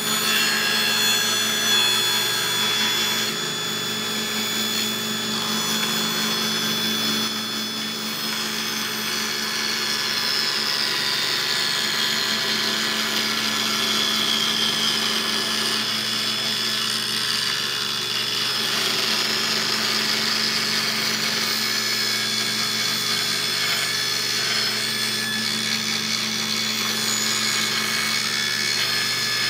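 Table saw running steadily while ripping a lengthwise slot into a hickory axe handle fed slowly through the blade. The blade's whine drops in pitch for several seconds around the middle as it loads up in the cut, then recovers.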